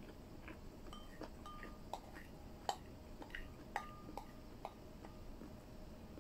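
A utensil clinking and tapping against a bowl while eating, about a dozen light clinks, some with a short ring.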